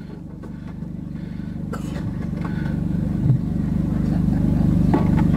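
Low engine of a motor vehicle running, growing steadily louder as it draws nearer.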